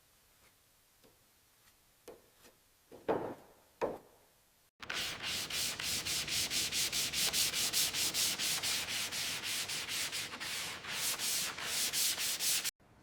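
A few light knocks and handling sounds, then rapid back-and-forth hand sanding of the aircraft's metal surface, about five strokes a second, starting and stopping abruptly.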